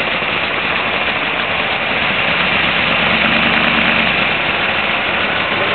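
Off-road race truck's engine idling loudly as the truck creeps forward, a steady rough running noise, with a deeper hum rising in for about a second, three seconds in.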